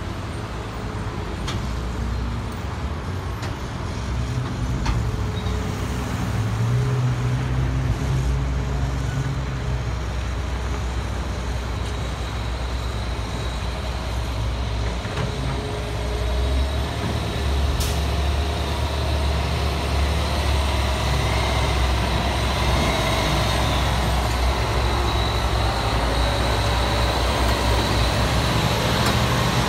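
Heavy diesel engines running steadily: a CAT excavator working and a dump truck pulling a bottom-dump trailer. The rumble grows louder about halfway through as the truck and trailer move close by.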